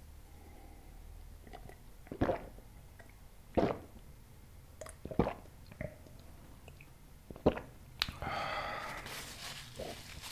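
Close-miked gulps of cola swallowed from a glass mug: four or five sharp swallows about a second and a half apart, then a longer noisy, breathy sound near the end.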